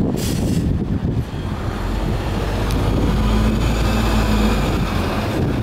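Isuzu Erga Type-B non-step city bus driving past, its diesel engine running with a low steady drone that builds and is loudest about three to four seconds in. A short hiss at the very start.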